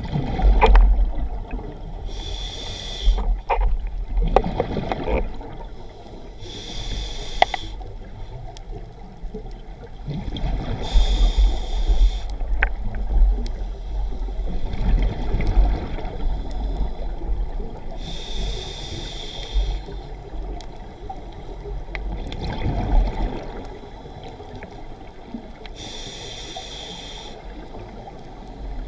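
Scuba regulator breathing heard underwater: a hiss five times, every four to eight seconds, with bubbling and a low rumble of water between.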